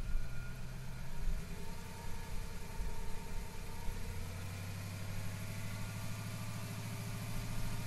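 Ford 5.0 L Windsor V8 in an EB Fairmont Ghia running steadily with the bonnet open, held at raised revs to bleed air out of the cooling system after a radiator replacement.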